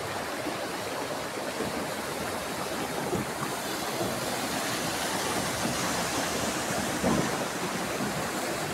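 Floodwater rushing in a steady torrent after bursting out of a railway construction tunnel.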